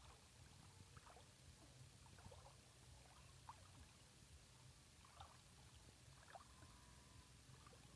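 Near silence: faint outdoor ambience with a low rumble and a few faint short chirps.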